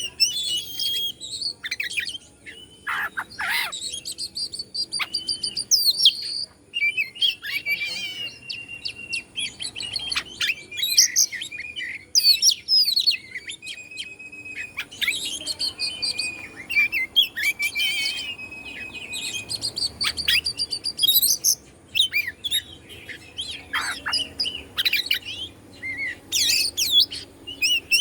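Oriental magpie-robin (kacer) singing a long, varied song of clear whistles, rapid trills and sharp downward-sweeping notes, phrase after phrase with only short breaks.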